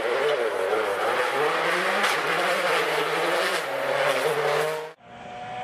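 Hyundai i20 WRC rally car's turbocharged four-cylinder engine driving hard, its pitch rising and dropping as the driver changes gear and lifts. It cuts off suddenly about five seconds in, and another rally car's engine takes over.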